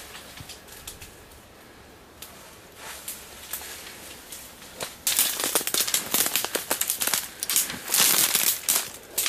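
Dry brush, cane stalks and dead leaves crackling and snapping as someone pushes through thick undergrowth on foot. A few scattered faint crackles at first, then a dense, loud run of crackling and snapping from about five seconds in.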